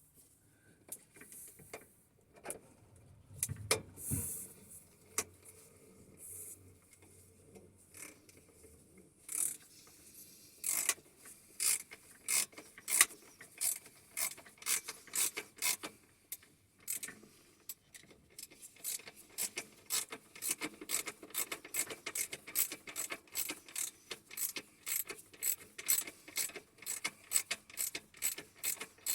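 Hand tools on a motorcycle's front forks: scattered clicks and knocks, then a ratchet spanner clicking in a quick, even run of short strokes, about two to three clicks a second, through the second half.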